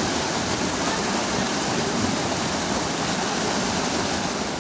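Shallow rocky river running over and between stones: a steady rush of flowing water.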